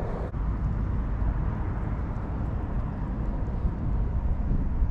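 Steady low outdoor rumble with no distinct events, the kind made by wind on the microphone or by distant road traffic.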